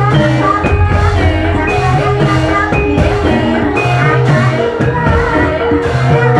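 Ebeg dance accompaniment played loud over a loudspeaker stack: gamelan-style music of ringing pitched notes over a steady drum beat, with a singing voice.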